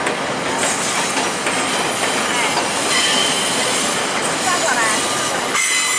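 Train of LRC passenger cars rolling slowly over curved track and switches, with a steady noise of steel wheels on rail. Brief thin wheel squeals come about halfway through and again near the end.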